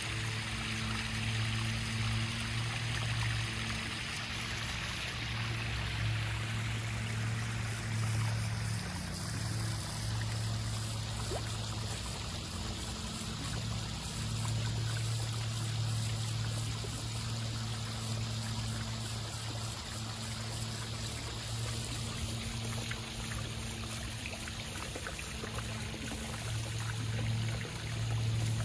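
Water running and trickling steadily into a backyard koi pond, with a low hum underneath that swells and dips.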